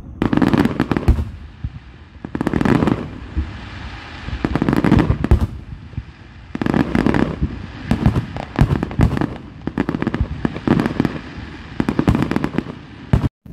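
Aerial fireworks shells bursting in repeated volleys about every two seconds, sharp bangs followed by crackling.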